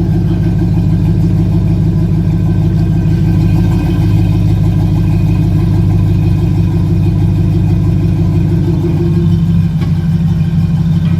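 2004 Chevy truck's engine idling steadily through a 3-inch exhaust pipe fitted with a larger exhaust tip, a low, even drone that firms up slightly about four seconds in.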